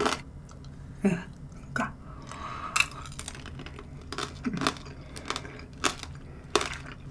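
Chewing of shine muscat grape tanghulu, the hard sugar shell cracking in irregular sharp crunches.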